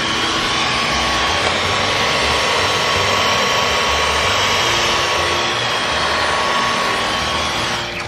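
Dyson V15 Detect cordless stick vacuum running steadily, its motor whine and airflow rush over the laser soft-roller floor head as it sweeps across hard tile.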